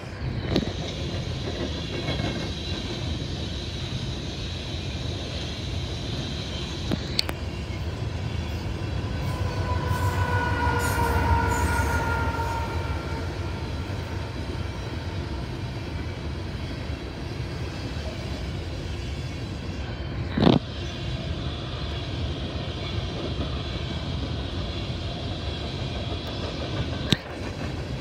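Freight train of coal hopper cars rolling past, a steady rumble of wheels on rail. From about ten to twelve seconds in, a long tone sinks slightly in pitch over the rumble, and there are sharp knocks about seven, twenty and twenty-seven seconds in, the one near twenty seconds the loudest.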